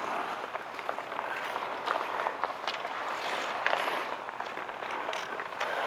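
Outdoor ice hockey play: skates scraping and carving on the ice in swelling rushes, with scattered sharp clacks of sticks and puck.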